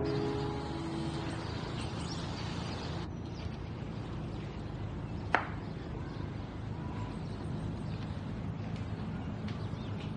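Steady background ambience with a few faint chirps, and a single sharp click of a door latch about five seconds in.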